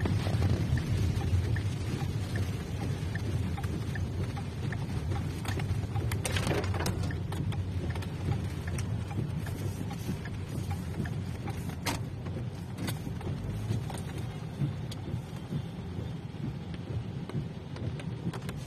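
Steady low rumble of a car driving, heard inside the cabin, with scattered light ticks of rain on the car and a brief wash of noise about six seconds in.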